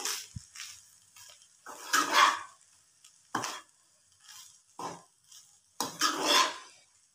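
A perforated metal spatula stirring and scraping cooked rice with potato around a non-stick frying pan. It comes as a string of separate scraping strokes, the longest about two and six seconds in.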